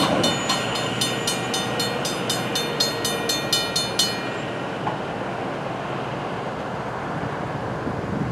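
Railroad grade-crossing bell ringing about four strikes a second while the crossing gates lower, then stopping suddenly about four seconds in once the gates are down. A steady outdoor rush of wind and traffic remains afterwards.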